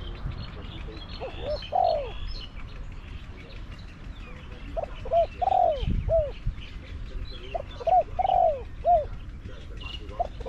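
Spotted dove cooing: repeated phrases of a few short coos and one longer drawn-out note, coming about every three seconds. Small birds chirp faintly in the background.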